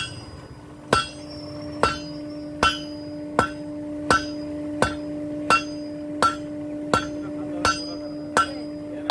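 A blacksmith's hammer striking metal on an anvil in a steady rhythm, about one ringing blow every three-quarters of a second, with a steady hum underneath.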